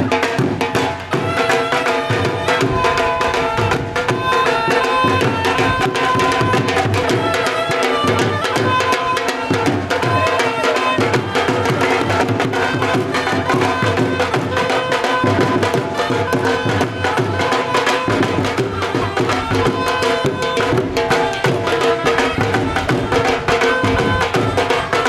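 Dhol drums playing a bhangra rhythm, with a pitched melody line running over the drumming.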